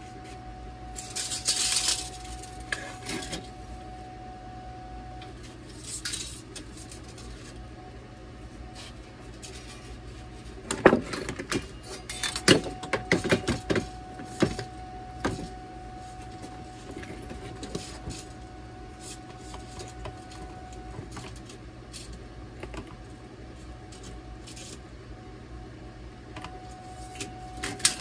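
Metal clanks and clicks of quick-release bar clamps being set and tightened across a bent steel-strip ring on a workbench, with a burst of sharp knocks about eleven to fifteen seconds in. A steady low hum runs underneath.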